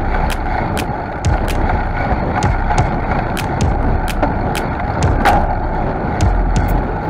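Bicycle riding on asphalt, heard from a camera mounted on the bike: steady tyre-rolling noise with wind rumble on the microphone. Sharp ticks run through it, about two or three a second.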